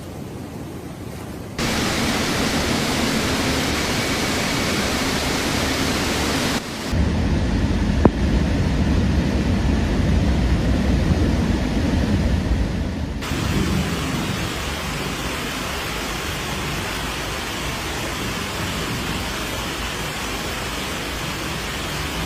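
Steady storm noise of rain and rushing water, in several clips cut together. It changes abruptly about 1.5, 7 and 13 seconds in, with a deep rumble in the middle clip and one sharp click about 8 seconds in.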